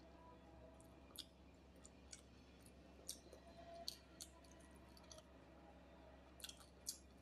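Faint eating sounds from someone eating by hand: scattered wet mouth clicks of chewing and lip smacks at irregular intervals, over a faint low hum.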